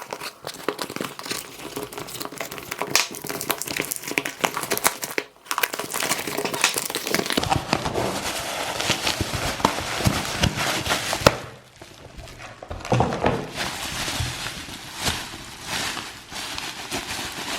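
Packaging being handled and opened by hand: irregular crinkling, crackling and tearing as the wrapping is pulled apart, with brief pauses about five seconds in and again around twelve seconds in.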